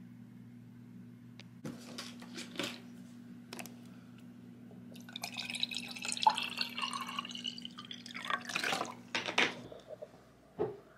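Water poured into a drinking glass for several seconds from about halfway in, with a tone that rises slightly as the glass fills. A few light knocks come before it and one after, over a steady low hum that stops near the end.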